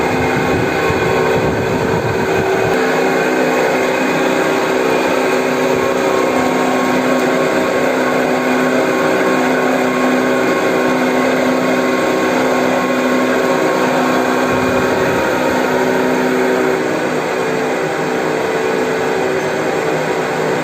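Horizontal metal-cutting bandsaw running, its motor and blade giving a steady drone with several constant tones, a little quieter near the end.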